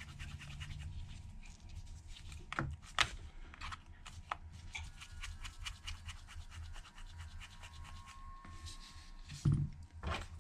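Small metal-on-metal scratching and ticking of a precision pentalobe screwdriver turning out the tiny bottom screws of an iPhone 8, with a few sharper clicks and a dense run of rapid ticks in the middle. A low steady hum runs underneath.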